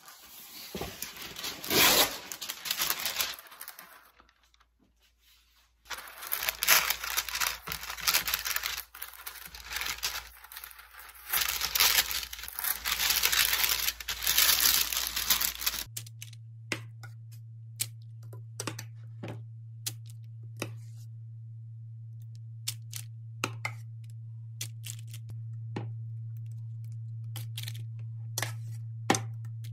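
Baking paper rustling, crinkling and tearing in bursts as it is handled and pressed into a plastic dehydrator tray, with a brief lull a few seconds in. About halfway through it stops abruptly, and a steady low hum with scattered sharp clicks follows.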